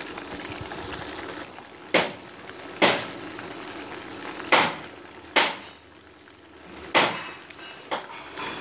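Metal kitchen tongs clacking against the frying pan and the chicken pieces, about six sharp ringing clacks roughly a second apart, over a steady sizzle of chicken frying in oil.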